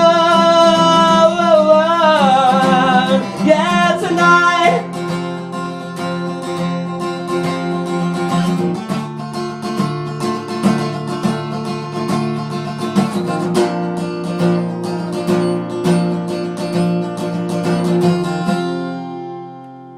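Acoustic guitar strumming under a singer holding a long, wavering final note that ends about four seconds in. The guitar plays on alone and stops shortly before the end.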